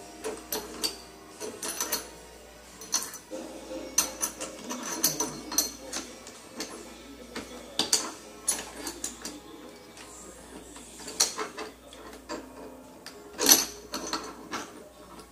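Irregular metallic clicks and clinks of motorcycle gearbox parts being handled: shift forks fitted onto the gears and shift drum of a Honda Titan 125 gearbox, with one louder clack near the end.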